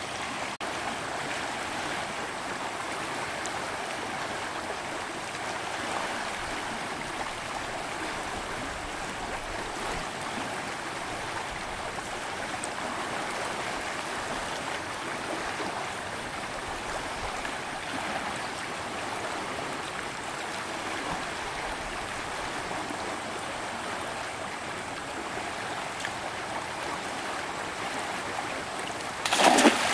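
Steady rushing of a flowing stream. Near the end a single brief, much louder noise breaks in over it.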